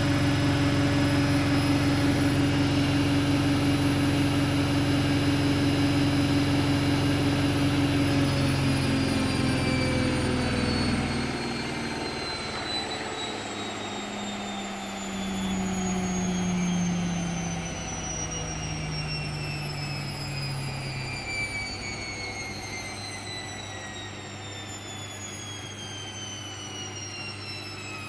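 Hoover 8kg washing machine at the end of its spin cycle: the drum and motor spin steadily at full speed, then wind down, the whine falling steadily in pitch and the hum dropping away about eleven seconds in as the drum slows.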